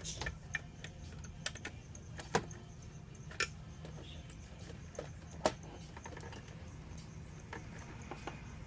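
Scattered light clicks and taps from small parts being handled, over a steady low machine hum. The loudest clicks come about two, three and a half, and five and a half seconds in.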